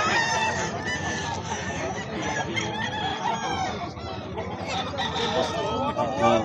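Gamecocks crowing and clucking, several birds calling over one another.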